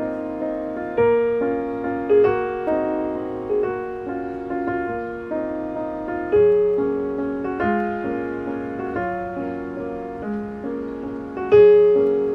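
Piano music: a slow, gentle piece of struck notes and chords, each fading away, with a few notes played louder about a second in, near the middle and near the end.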